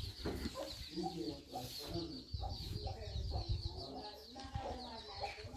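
Country chickens clucking, a string of short calls one after another, with a fast high-pitched chirping running underneath.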